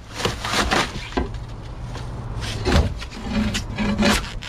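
Waterlogged flotation foam being pried and broken out of a small boat's hull: a run of irregular cracks, knocks and tearing sounds.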